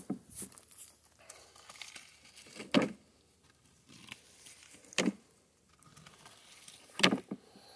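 Long-handled rake and plastic scoop pan picking up pig manure: the rake scrapes through dry leaves and dirt, with three louder strokes about two seconds apart.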